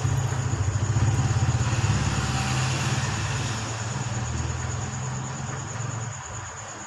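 A motor vehicle's engine running close by, loudest about one to two seconds in and fading away near the end, with a steady high-pitched whine throughout.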